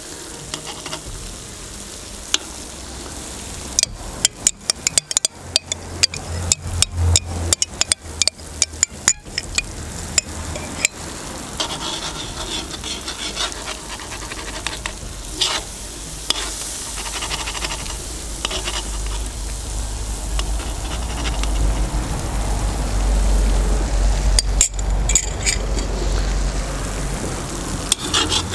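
Food sizzling in hot oil in a cast-iron kazan as tomato paste is fried in it, with a metal spoon clicking and scraping against the pot: a quick run of sharp taps from about four to eleven seconds in, then steadier stirring and sizzling while a low rumble builds.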